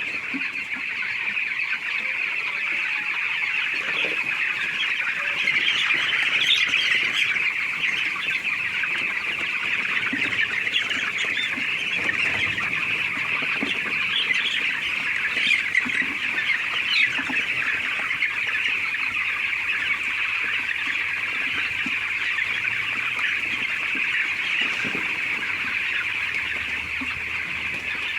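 A large flock of chickens calling all at once: a dense, steady chorus of clucks and peeps with occasional louder squawks standing out.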